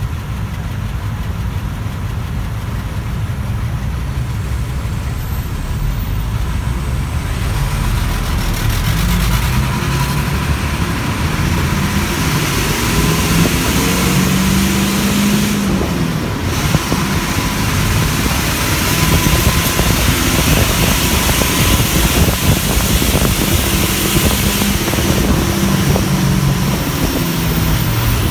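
City bus engine idling while stopped at a traffic light, then pulling away about seven seconds in; the engine pitch rises and falls as it accelerates, and road noise grows as the bus drives on. Heard from inside the bus.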